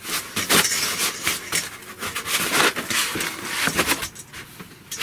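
White foam packing rubbing and scraping as the CNC 3018's aluminium base frame is worked out of it: a run of short, irregular rustling scrapes.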